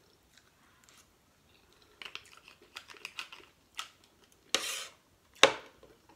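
A metal fork clicking and scraping against crab shell as the meat is picked out. A cluster of small crackling clicks comes about two seconds in, then a short noisy burst, and a sharp loud click near the end.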